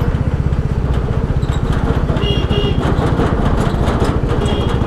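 Royal Enfield Classic 350's single-cylinder engine ticking over at low revs with an even, rapid thump as the bike creeps forward.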